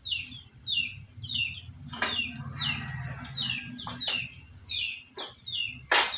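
A bird chirping over and over, short falling notes about two a second, over a low steady hum. A few sharp clicks cut in, the loudest near the end.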